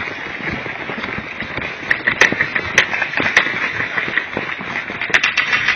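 Scattered sharp cracks and snaps of airsoft gunfire and BB hits during play, a few single ones and then a quick cluster near the end, over a steady hiss.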